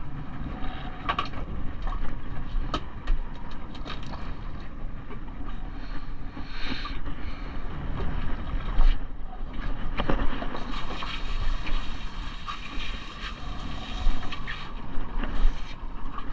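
Wind on the microphone over steady water and hull noise of a small fishing boat, with scattered clicks and knocks as fishing line and fish are handled on the fiberglass deck. A stretch of louder hiss comes in the second half.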